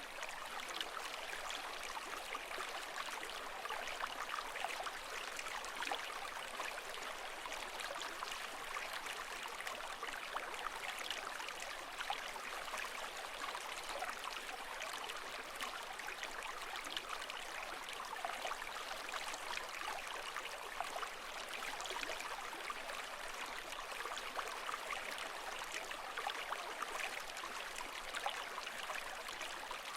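Running water, trickling and bubbling steadily with a dense patter of small splashes and no rise and fall of waves.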